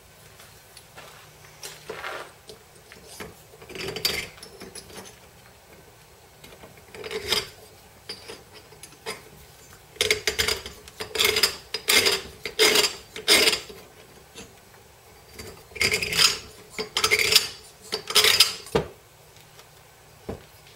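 Honda CT110 cylinder head and hand tools being handled on a workbench: irregular bursts of metal clattering and scraping, a few scattered ones at first, then busy runs about ten seconds in and again near the end.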